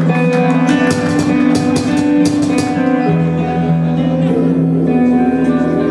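Live black metal band playing: guitars hold sustained chords over drums, with cymbal hits in the first half and a deep low note coming in about halfway through.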